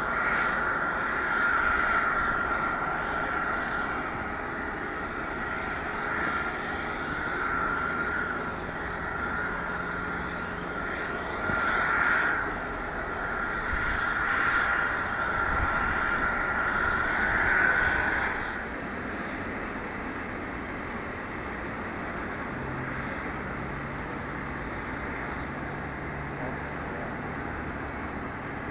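Jet airliner engines running at low power with a steady high whine that swells and fades several times, then stops about eighteen seconds in. A steadier, quieter rumble and a low hum carry on after it.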